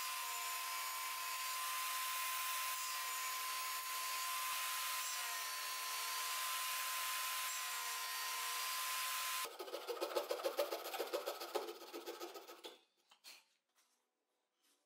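Table saw running and cutting rebates in a plywood leg, a steady whine with the rush of the blade in the wood. About nine and a half seconds in, the whine gives way to about three seconds of rapid, uneven rasping of wood on the blade, which stops about thirteen seconds in.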